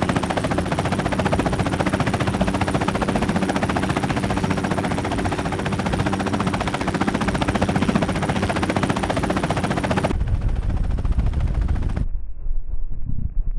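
2013 Honda CB500X's parallel-twin engine running steadily under way, with heavy wind rush over the microphone. About 10 seconds in the hiss drops away and the sound turns thin and muffled near the end.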